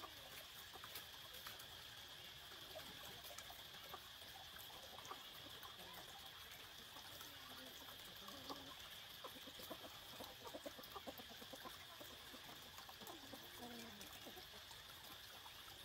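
Faint outdoor background: occasional chicken clucking over a steady high hiss, with a light trickle of water.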